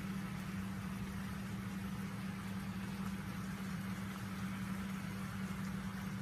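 A steady low hum with an even hiss above it, with no separate knocks or clicks.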